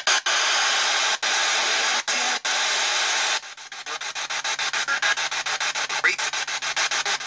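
P-SB7 spirit box sweeping through FM radio stations: loud radio static hiss, steady with a few brief dropouts at first, then about three seconds in it becomes rapid, evenly chopped static at about six to seven pulses a second as each station is skipped in turn.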